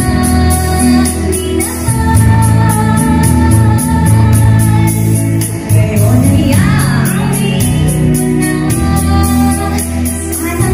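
A woman singing into a microphone over amplified backing music with a steady beat. She holds long notes and sings a swooping run about six seconds in.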